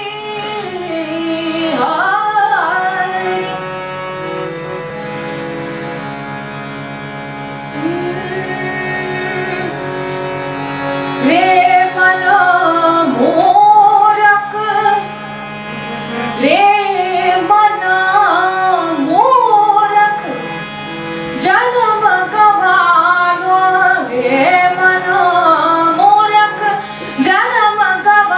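Hindi devotional bhajan: a voice sings a gliding, ornamented melody in phrases over a steady drone, growing louder about eleven seconds in.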